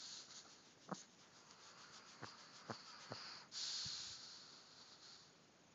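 A sleeping pet snoring: a few short clicks, then a longer hissing breath about three and a half seconds in that fades away.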